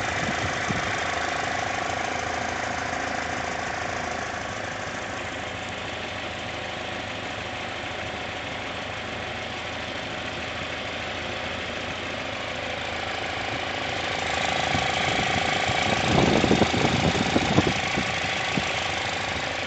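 An engine running steadily, growing louder for a few seconds near the end with some knocking.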